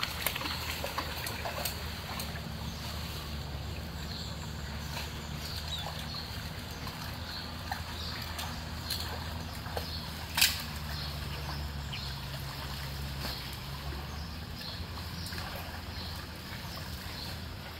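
Water trickling and sloshing as hands pull wet leaves and debris out of a clogged drain inlet in floodwater, with small scattered clicks, over a steady low hum. One sharp knock stands out about ten seconds in.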